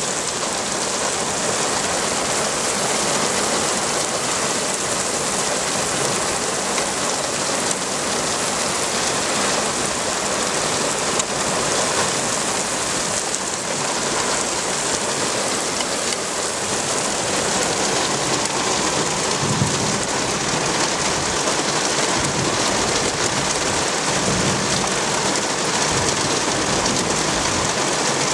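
Heavy downpour: rain pouring down hard and steadily.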